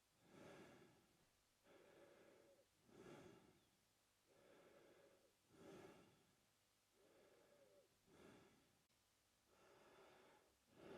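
A man breathing slowly and steadily through his mouth, faint, each breath in and out taking about two and a half seconds, so four or five breaths in all.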